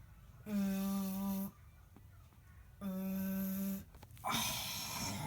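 Phone ringing tone on a call being placed: steady, flat buzzing rings about a second long, twice, then a short noisy burst near the end.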